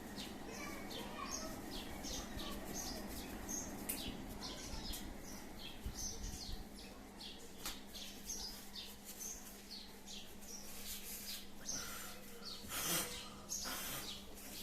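Small bird chirping over and over, short high chirps about twice a second, with a few sharp clicks and a faint steady hum beneath.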